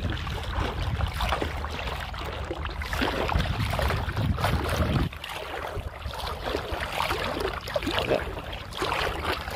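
Muffled water sloshing and bubbling around a phone held in the sea, with irregular crackles and a low rumble that cuts off about five seconds in.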